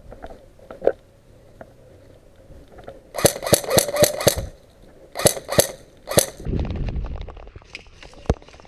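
Airsoft guns firing: a quick string of about six shots about three seconds in, a shorter string of three shortly after, and a single shot a moment later.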